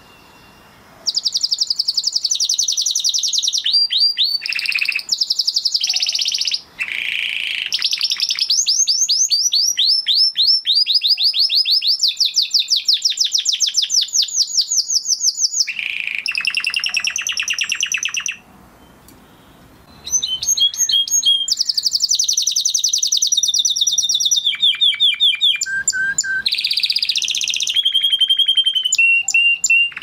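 Spanish Timbrado canary singing: long phrases of fast trills and rolls, each made of rapidly repeated high notes. The song starts about a second in and breaks off for about two seconds a little past halfway.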